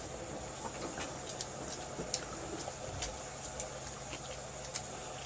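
Close-miked eating sounds of people chewing hamburgers: scattered short, sharp mouth clicks and smacks over a steady low electrical hum and high hiss.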